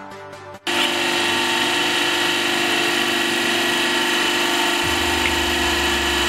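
Hydraulic press's electric motor and pump start abruptly under a second in and run with a loud, steady whine and hiss. A deeper hum joins about five seconds in.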